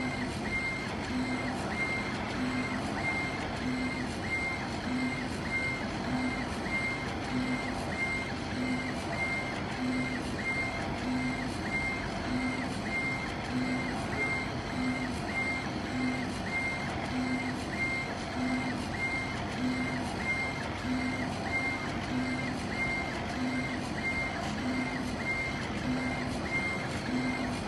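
CO2 laser engraver raster-engraving stone: the laser head shuttles back and forth, its motors giving a short pitched tone on each pass, about once a second, over a steady machine hiss.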